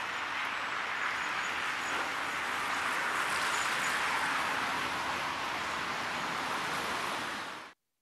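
A steady hissing rush of thrown boiling water falling through −41 °C air as a spray that flash-freezes into a cloud of ice crystals and vapour, swelling a little midway. The sound cuts off suddenly near the end.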